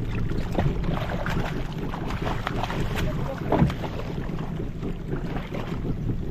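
Small fishing boat's engine running steadily at idle, with wind on the microphone and short splashes from a hooked giant trevally thrashing at the surface beside the hull.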